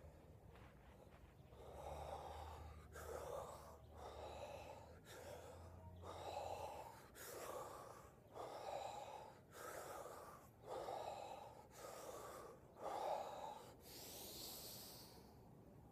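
A man breathing hard and rhythmically in a breathwork exercise, deep audible breaths in and out at about one a second. It ends with one longer, airier breath.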